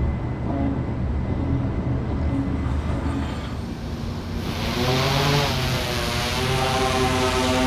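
A multirotor camera drone's motors spinning up about halfway through: a rising whine with hiss that levels off into a steady, many-toned buzz. Before it, a low steady rumble.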